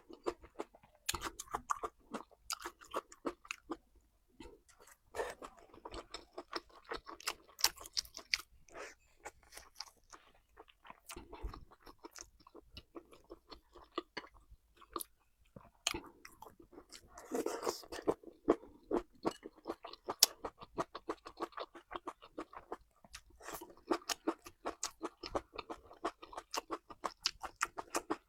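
Close-miked chewing of crunchy food, a quick run of crisp mouth clicks and crunches that comes in spells with short pauses between them.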